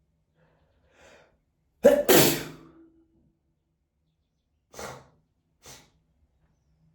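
A person sneezing: a faint in-breath, then one loud sneeze about two seconds in, followed by two short breaths near the end.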